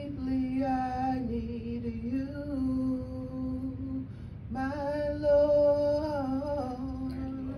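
A woman singing a slow worship song solo, holding long notes in two phrases; the second phrase begins about halfway through.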